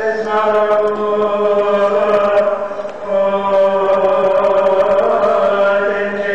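A Coptic priest chanting the Gospel reading solo in long held notes that shift slowly in pitch, with a short breath break about three seconds in.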